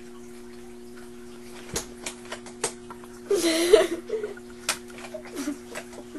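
Scattered, irregular hand claps starting about two seconds in, with a short loud vocal burst near the middle, over a steady low hum.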